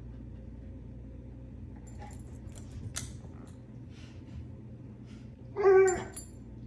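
Rottweiler nosing about in a wicker toy basket with a few light clicks and rustles, then giving one short whine about five and a half seconds in.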